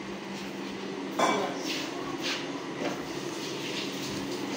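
Steel kitchenware being handled: one sharp, ringing metal knock about a second in, then several lighter clinks and knocks.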